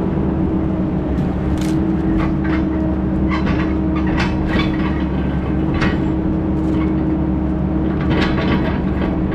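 Heavy engine running steadily, with scattered clanks and rattles on top.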